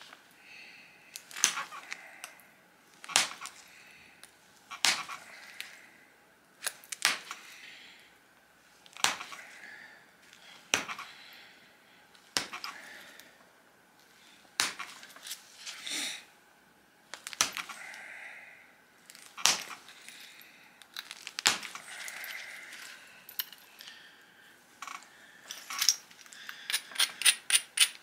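Pressure flaking the edge of a stone disc biface with a pointed hand-held flaker: each push ends in a sharp crack as a flake pops off, about one every two seconds, with faint rubbing as the flaker is set between pushes. Near the end, a quick run of short scraping strokes as the edge is abraded with a stone.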